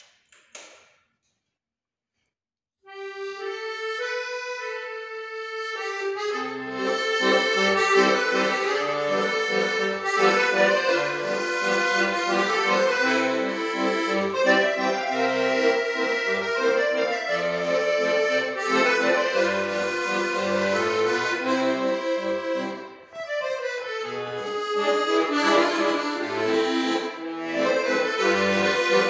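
Piano accordion played solo. After a short click and about two seconds of quiet, a single right-hand melody begins, and a few seconds later the left-hand bass notes and chords join it. The music breaks off briefly about two-thirds of the way through, then carries on.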